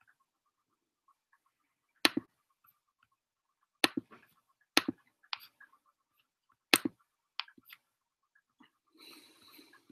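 Half a dozen sharp single clicks from a computer being worked, spaced a second or two apart, followed near the end by a brief soft rustle.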